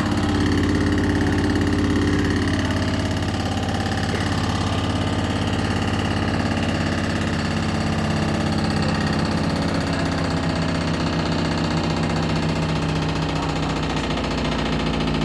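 Beko washing machine spinning, with its motor and drum giving a steady hum and a fast rattling vibration. The machine walks on the spin, a sign of an unbalanced or shaking drum.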